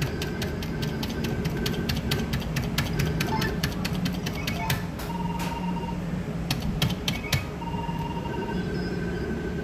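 Electronic video-bingo machine ticking rapidly, about six to eight clicks a second, with short electronic beeps, as a 53-credit win counts up. The ticking stops about seven seconds in, over a steady low hum.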